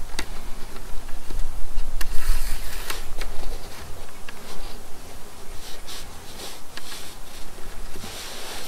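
Cord being pulled and wrapped around a bundle of sticks, giving short rustling swishes and small clicks, over a low wind rumble on the microphone that eases a few seconds in.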